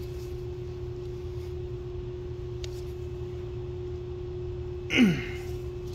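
Steady background hum holding one unchanging tone, with a faint click a little before the midpoint and a short, falling groan from a man about five seconds in.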